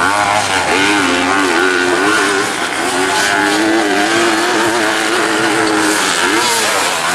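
Motocross bike engine revving hard, its pitch climbing and dropping with throttle and gear changes, holding fairly steady through the middle, then a dip and a fresh rise near the end.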